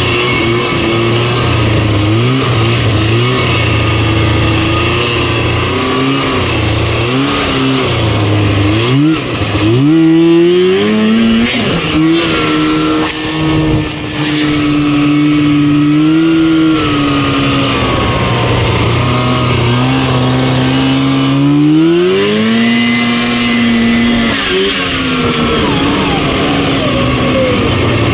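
Snowmobile's Rotax 503 two-stroke twin-cylinder engine running, its pitch rising and falling with the throttle, with quick revs up about nine to ten seconds in and again about twenty-four seconds in.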